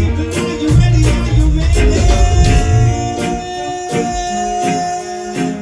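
Live band music: a heavy bass line and rhythmic strokes, then a long held note over lighter accompaniment from about two seconds in.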